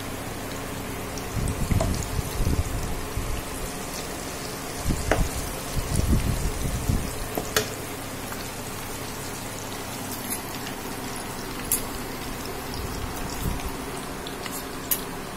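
Oil sizzling as teasel gourd pakoras deep-fry in a pan, with a metal slotted spoon clicking and clinking against the pan now and then. A steady low hum runs underneath.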